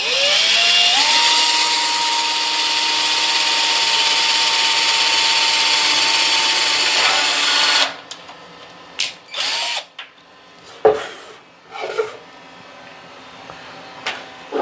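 Electric drill spinning up to a steady high whine and drilling a number 30 hole through for about seven seconds, then switched off and winding down. A few knocks and clatters follow as the work is handled.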